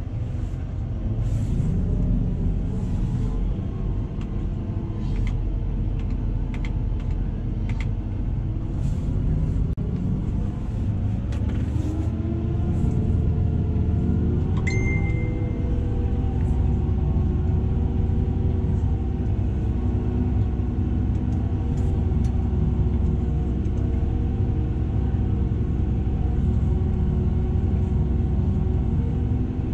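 Tractor engine running steadily, its pitch climbing as it speeds up about ten seconds in, then holding at the higher speed. A short high beep sounds about halfway through.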